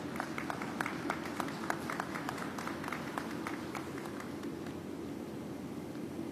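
Scattered applause from a small crowd, sparse claps that thin out and stop about four seconds in. A steady low hum runs underneath.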